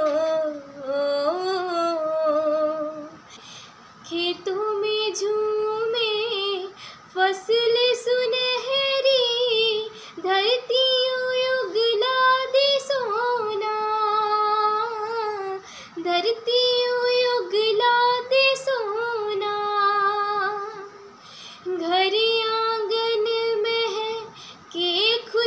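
A teenage girl singing a Hindi patriotic song solo and unaccompanied, in sung phrases of a few seconds with short breaks for breath between them.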